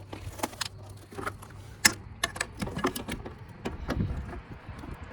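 Irregular light clicks and clinks from hand tools and parts being handled, with a faint low hum in the first second.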